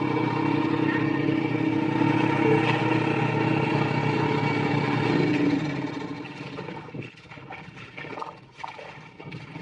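A small engine runs steadily and stops about six seconds in. After it, there are irregular wet slaps and splashes of mud and water.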